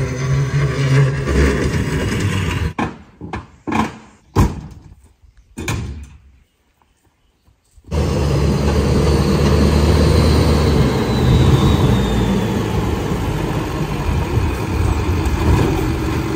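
Choppy vehicle noise that drops to a brief silence, then from about halfway a lifted monster truck's engine running steadily as it pulls up.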